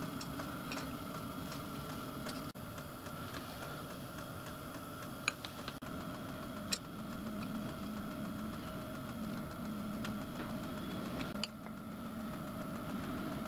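Steady machine hum, with a few light metallic clicks as the dividing head is indexed round and the scriber marks graduation lines on the dial blank.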